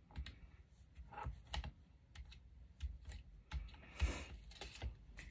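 Light, irregular clicks and taps of paper tags and small craft pieces being handled and set down on a tabletop, with a slightly louder brief rustle about four seconds in.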